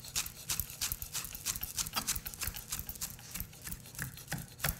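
Chef's knife chopping fresh parsley on a wooden cutting board: a quick, even run of knife strikes, about five a second.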